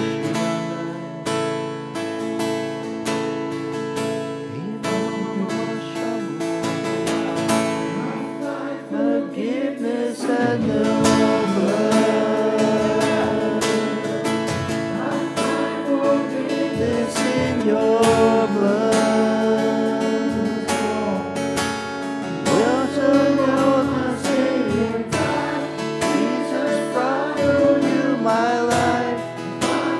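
Live worship music: a strummed acoustic guitar holding chords, with singing voices coming in about a third of the way through.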